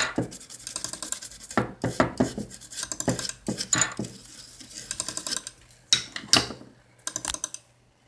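Irregular scrubbing and scratching strokes on a reballed eMMC chip as it is cleaned with alcohol gel, the strokes dying away near the end.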